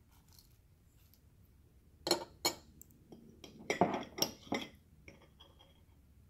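Metal spoon clinking and tapping against a jar and a ceramic bowl as fried garlic is scooped out and sprinkled in: a quick run of sharp clinks starting about two seconds in and stopping before five seconds.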